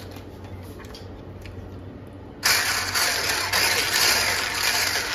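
Hand-held electric whisk switched on about two and a half seconds in, its motor whirring loudly and steadily as it beats pancake batter in a plastic bowl. Before that only a low steady hum.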